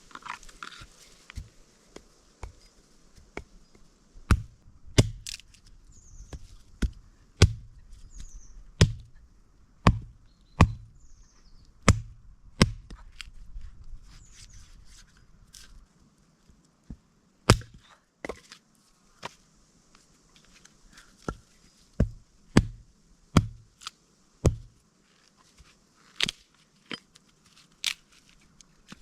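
Wood being chopped: a series of sharp strikes with a deep thud, about one a second for some ten seconds, then more irregular strikes with pauses.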